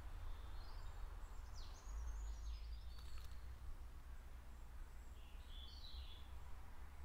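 Small birds chirping outdoors over a steady low rumble. A few quick falling whistles come about two seconds in, and another short burst of chirps near six seconds.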